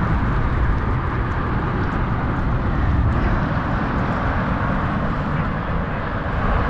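Wind buffeting the camera microphone on open water: a steady rumble and hiss.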